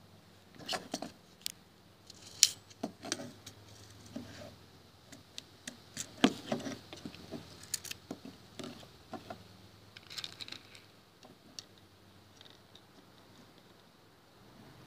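Irregular small clicks and taps of hard plastic: an airsoft pistol magazine being handled and 6 mm plastic BBs being picked from a plastic tray for loading into it.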